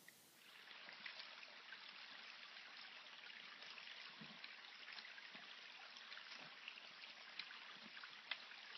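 Faint steady rush of running water from a small stream, with a few light clicks and crunches scattered through it.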